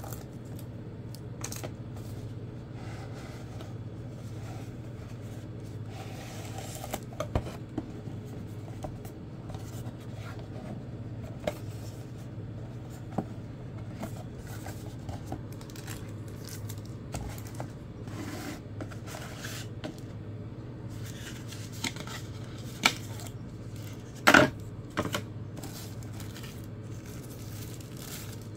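Cardboard phone box being opened by hand: a paper seal tearing, cardboard sliding and scraping apart, and light taps and clicks against a wooden desk, over a steady low hum. The loudest is a short, sharp handling noise about 24 seconds in.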